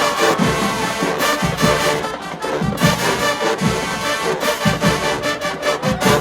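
HBCU marching band playing, brass sustaining chords over steady bass drum hits.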